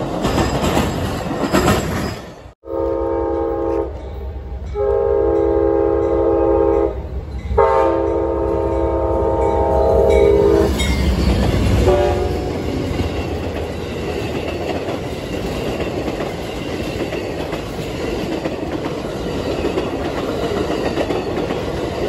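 Amtrak GE P42DC Genesis diesel locomotive sounding its horn for a grade crossing: three long blasts of growing length, then a short one, as the locomotive rumbles past close by. Steady clatter of passenger-car wheels over the rails follows. Before a sudden cut a couple of seconds in, the cars of another passing train are heard rolling by.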